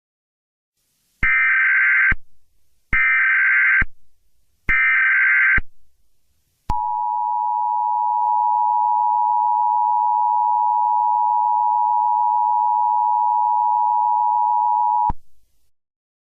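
Emergency Alert System alert: three short bursts of SAME header data, each about a second long, then the EAS attention signal, a steady two-tone beep held for about eight seconds that cuts off abruptly.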